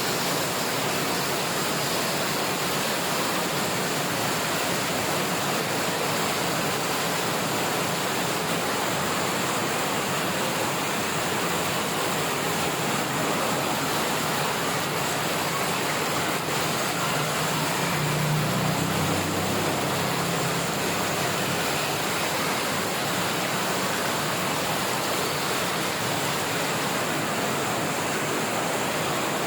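Steady, even rush of heavy monsoon rain and running floodwater. A brief low hum rises and fades about two-thirds of the way through.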